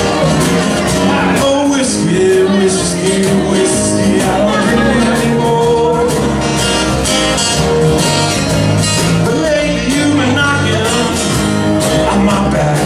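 Live blues band playing an amplified song: electric bass and acoustic guitars over a steady beat.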